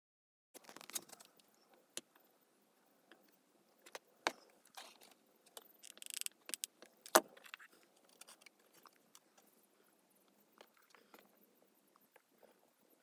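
Scattered clicks and knocks of plywood pieces and a hot glue gun being handled, starting about half a second in, with a brief hiss just after six seconds and the loudest knock about seven seconds in.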